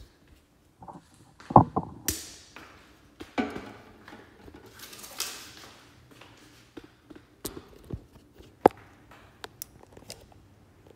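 Handling noise from a camera tripod being adjusted and moved: knocks and clicks with some scraping and rustling, the loudest thunk about a second and a half in.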